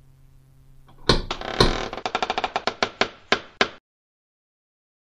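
Spooky creaking-door sound effect: a long hinge creak that starts about a second in, breaks into slower separate clicks, and cuts off suddenly.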